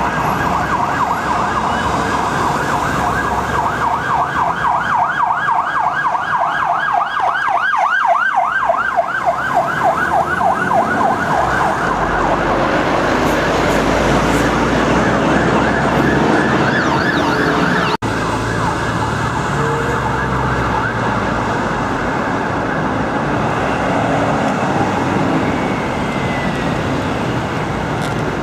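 Emergency vehicle siren passing through heavy traffic: a steady wail that switches to a fast yelp about four seconds in and fades away by about twelve seconds. Bus engines and road traffic run underneath and carry on after the siren has gone.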